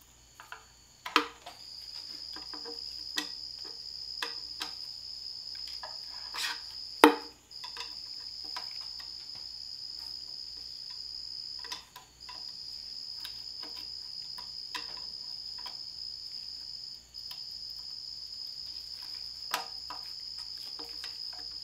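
A flathead screwdriver prying at the large steel snap ring inside a transmission's bell housing, giving scattered metal clicks and taps, with one sharp knock about seven seconds in. A steady high-pitched trill sounds throughout, breaking off briefly about every five seconds.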